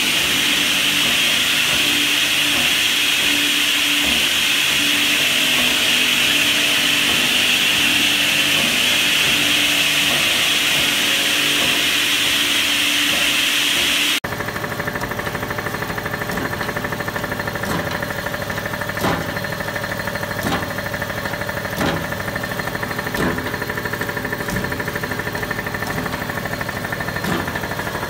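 Weinig moulder running under test, a steady loud hiss and whine from its spinning heads and feed. About halfway the sound changes abruptly to a quieter machine hum with a short knock about every second and a half.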